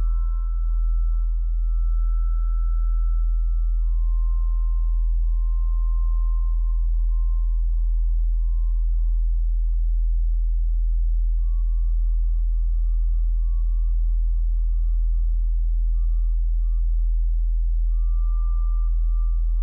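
Electronic ambient drone soundtrack: a deep, steady low hum under thin, held high pure tones that slowly shift in pitch and fade in and out.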